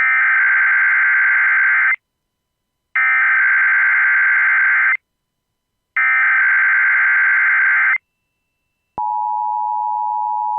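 Emergency Alert System SAME header: three bursts of warbling digital data tones, each about two seconds long with a second of silence between. About nine seconds in, the steady two-tone attention signal starts, announcing the tornado watch that follows.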